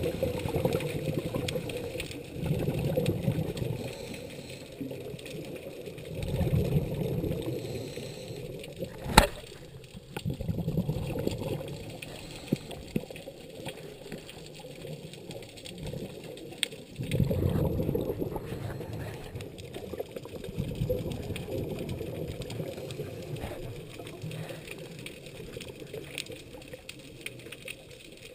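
Scuba divers' regulator exhalations bubbling and rumbling underwater in swells every few seconds. One sharp click comes about nine seconds in.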